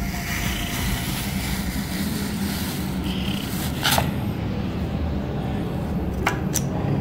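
Metal ice cream scoop scraping through a tub of frozen strawberry ice cream, over a steady low rumble, with a sharp click about four seconds in and two more near the end.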